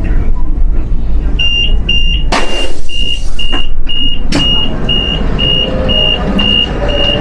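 High-speed train door warning beeping, a high single-tone beep about twice a second, as the door releases and opens. A loud burst of noise about two seconds in and a sharp clunk about four seconds in come from the door, over the train's low rumble.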